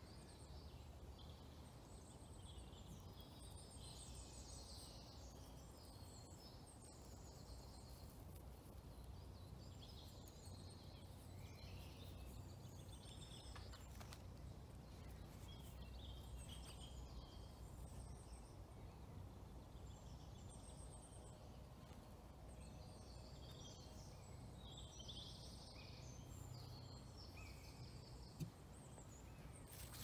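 Faint woodland birdsong: several birds singing in short, high chirps and trills throughout, over a steady low background rumble.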